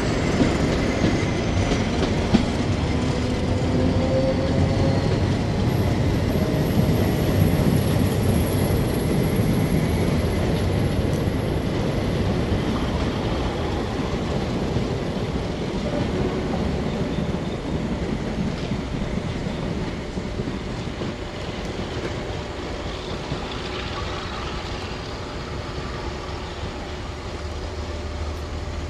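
Diesel-hauled passenger train of coaches running away past the platform, a steady rumble of wheels on rail and engine that slowly fades as it recedes.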